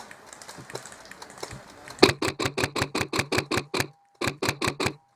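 An airsoft gun firing two fast bursts, about seven or eight sharp cracks a second, with a short pause between them.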